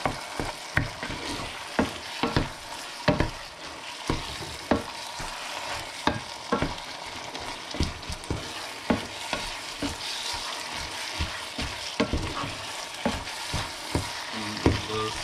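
Minced beef with onions, garlic and tomato paste frying in a pan, sizzling steadily, while a wooden spatula stirs it with irregular scrapes and knocks against the pan every second or so.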